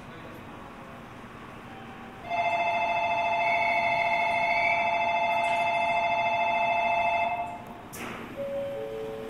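Monorail platform departure bell ringing steadily for about five seconds, starting about two seconds in: the signal that the train is about to leave. Near the end there is a single sharp knock, and then a two-note chime begins, alternating between two low tones.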